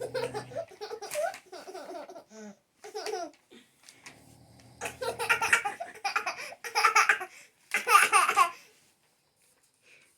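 Small child laughing hard in several fits of giggles and belly laughs, the loudest bursts coming from about five to eight and a half seconds in.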